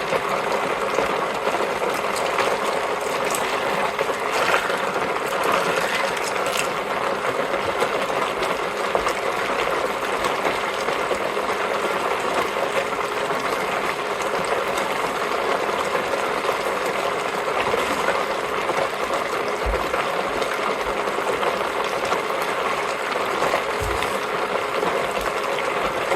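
Small fold-down portable washing machine churning a load of LEGO bricks in soapy water: a steady clatter of plastic bricks rattling and grinding against each other and the tub as the impeller spins them. Bricks grinding on each other like this is, to the owner, not a good sign: the impeller is hard on the bricks.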